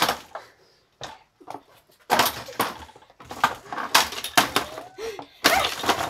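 Hammer blows smashing the plastic body of a red canister vacuum cleaner, with plastic cracking and clattering. A sharp strike at the start, a couple of lighter knocks about a second in, then a quick run of blows from about two seconds in, and another hard strike near the end.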